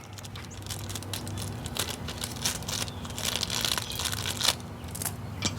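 Irregular crackling and rustling of hands twisting a plastic wire nut onto a pair of spliced electrical wires.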